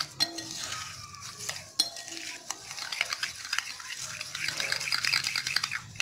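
A spoon stirring a gritty mix of sugar, chaat masala, salt and tamarind chutney in a glass bowl. It gives scraping with clinks of the spoon against the glass, a few separate clinks at first, then busier and louder from about halfway.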